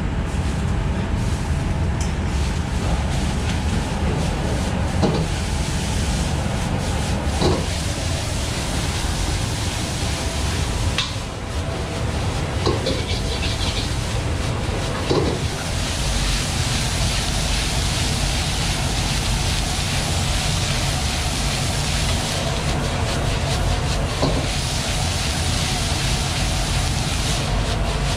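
Fried rice being stir-fried in a steel wok over a high gas flame: a steady low rumble from the wok burner under the sizzle of the rice. A metal ladle clanks and scrapes against the wok now and then, and the sizzle grows louder about sixteen seconds in for several seconds.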